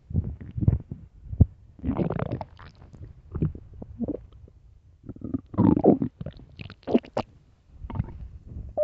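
An empty human stomach growling and gurgling loudly, in irregular bursts of varied length, some with a gliding pitch that rises and falls.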